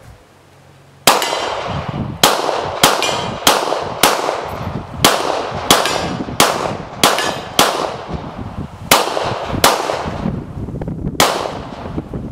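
Glock 23 pistol in .40 S&W firing about thirteen shots at an uneven pace, starting about a second in, with steel targets clanging as they are hit.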